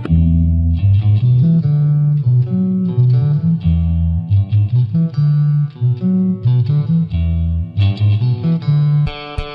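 Instrumental guitar music: plucked guitar notes over a prominent bass line of short, shifting notes.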